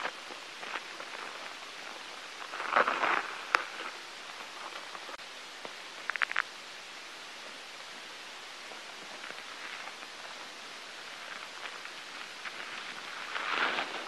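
Rustling over a steady hiss, swelling about three seconds in and again near the end, with a brief run of small clicks about six seconds in.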